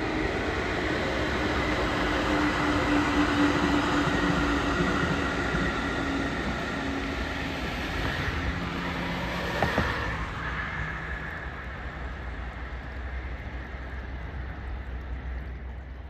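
A train running past on the rails, a steady rumble and hum that is loudest in the first few seconds and slowly fades away after about ten seconds, with one sharp click near the middle.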